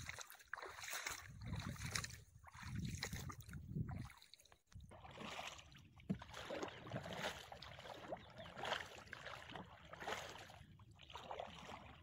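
A paddle stroking through shallow marsh water beside a wooden dugout canoe. There is a faint splash and swish every second or two.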